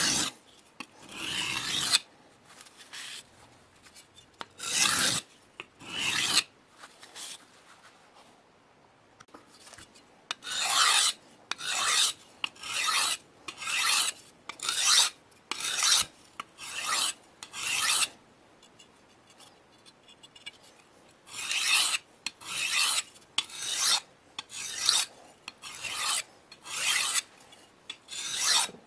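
Hand abrasive strokes on a cleaver: a rough, raspy scraping pushed back and forth, about one stroke a second in runs separated by pauses of a few seconds.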